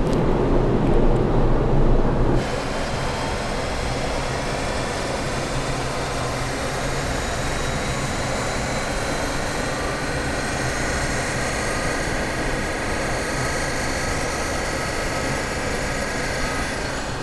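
Background music, then about two seconds in an Opel Crossland on E85 with a stage 1 remap running a power pull on a roller dynamometer: a steady, dense mix of engine and tyre-on-roller noise that holds to the end.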